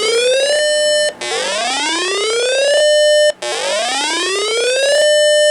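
Repeating electronic alarm whoop: a buzzy tone sweeps upward for about one and a half seconds, holds briefly at the top, then cuts off sharply. It starts again about every two seconds, about three times.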